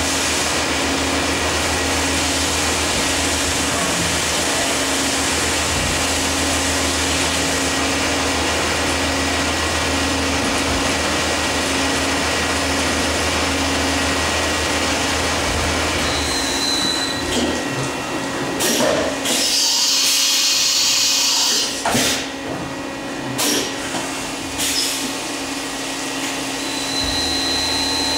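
Fadal CNC vertical mill cutting a handle blank on a rotary axis under flood coolant: a steady hiss of spraying coolant and cutting, with a constant machine hum. From about 16 s in the sound turns uneven, with a brief high whistle, a loud hissy stretch and several sharp clicks, and the whistle returns near the end.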